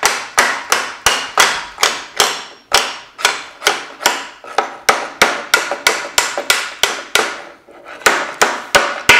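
Hammer tapping steadily, about three sharp, ringing blows a second, driving the laygear shaft into a Volvo M40/M41 gearbox casing so that it pushes the guide pipe out through the bearing bore.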